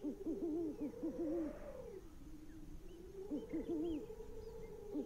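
An owl hooting in two short runs of quick hoots, one at the start and another a little past halfway, over a faint steady droning tone.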